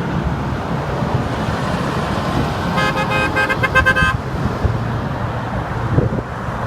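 Interstate traffic rumbling past, with a vehicle horn sounding once for a little over a second about three seconds in, several pitches at once.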